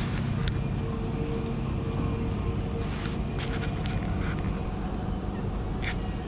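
Steady low rumble and hiss of outdoor background noise, with a faint steady hum for the first few seconds and a few light clicks.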